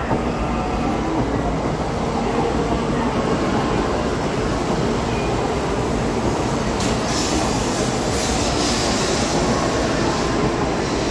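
N700-series Tokaido Shinkansen train pulling in alongside the platform to arrive at the station: a steady rumble of wheels and rushing air as the carriages pass. A brighter hiss joins from about seven seconds in.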